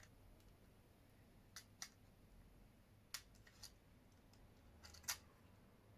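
About half a dozen faint, sharp clicks at irregular intervals: small handling and probing clicks on a disposable camera's flash circuit board.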